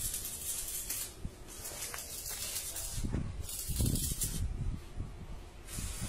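Electric arc welding on steel rebar: a crackling, frying hiss that comes in bursts of about a second with short breaks between them. A few low rumbles come in about three to four seconds in.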